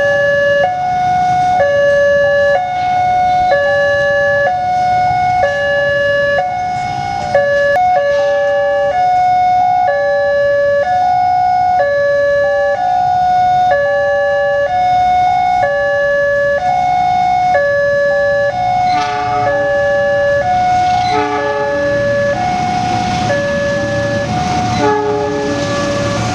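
Railway level-crossing warning sirens: an electronic two-tone siren alternating between a lower and a higher note about every two-thirds of a second, overlapped by a second, different crossing siren. In the last third a train's rumble rises underneath as it nears the crossing.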